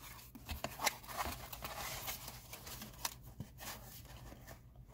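Hands opening a small cardboard box and handling the foam packing inside: cardboard flaps rustling and scraping, with irregular light clicks and taps.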